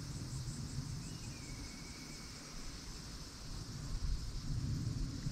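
Insects chirring steadily in the trees, a high even drone, with a short falling whistle about a second in and a low uneven rumble underneath that grows louder near the end.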